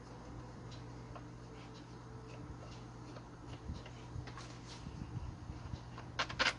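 Screwdriver working the screws of a gas brush cutter's plastic engine cover: faint scattered ticks and small clicks, with a short louder clatter near the end.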